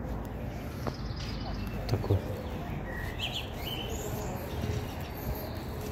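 Songbirds giving a few short, high chirps over steady outdoor background noise, with two brief dull thumps about two seconds in.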